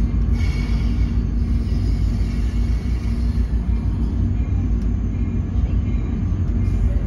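Steady low rumble of a passenger train in motion, heard from inside the coach: wheel and track noise through the car body with no horn.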